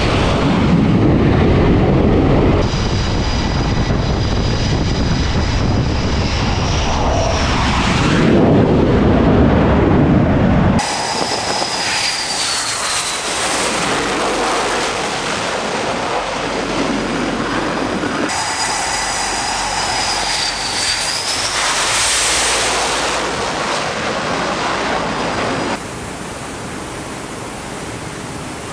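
F/A-18 Super Hornet jet engines on an aircraft carrier's flight deck: a deep jet rumble with a high whine that glides down, in several clips joined by abrupt cuts. In the last few seconds the jet noise gives way to a steadier, quieter rush of wind and sea.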